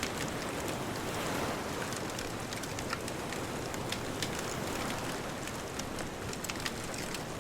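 Wood fire crackling with scattered sharp pops and snaps, over a steady wash of distant ocean surf.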